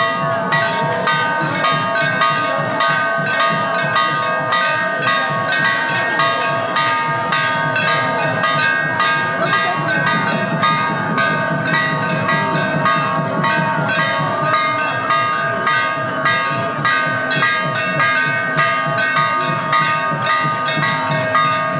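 Temple bells rung rapidly and without a break, several steady ringing tones over a fast, even run of strikes, with a crowd's voices underneath.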